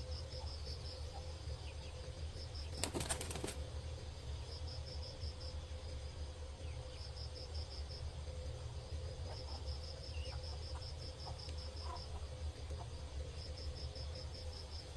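Quiet farmyard ambience: insects chirping in short, high, rapidly repeated trills that come and go, over a steady low hum, with a brief rustling burst about three seconds in.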